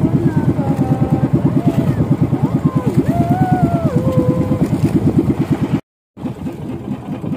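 Small outrigger fishing boat's engine running steadily, a rapid, even chugging, with a faint wavering whistle-like tone over it. About six seconds in it cuts off abruptly, leaving quieter wind and water.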